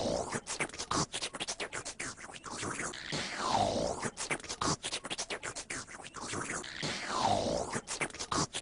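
A looped sound clip: a falling, sliding tone comes around three times, about every four seconds, over a dense run of rapid clicks, like a scratched or stuttered edit.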